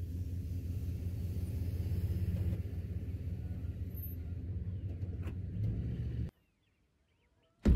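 Pickup truck engine idling with a steady low rumble, which stops abruptly about six seconds in. A single sharp knock comes near the end.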